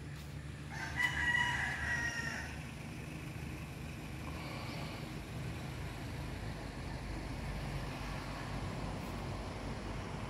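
A rooster crowing once, loud, starting about a second in and lasting under two seconds, with a fainter call a few seconds later, over a steady low background rumble.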